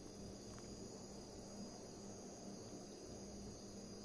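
Faint room tone: a steady high-pitched whine with a low hum beneath it.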